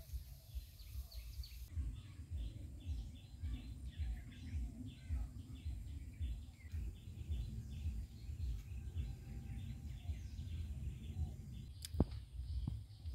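Birds chirping in quick repeated short notes, about four or five a second, over a low outdoor rumble. A single sharp click comes near the end.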